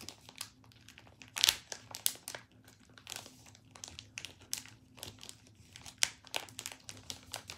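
Crinkling and rustling of an album's pocket page as a puffy handmade card is pushed and worked into it, in irregular crackles, the loudest about a second and a half in.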